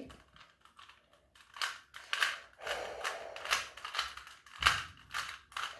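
Plastic Rubik's cube being turned by hand, its layers clicking and clacking in quick, irregular runs.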